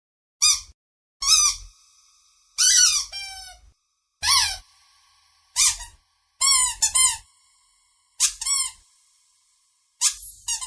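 Kitten mewing again and again: about a dozen short, high-pitched mews, each rising and then falling in pitch, with short gaps between them.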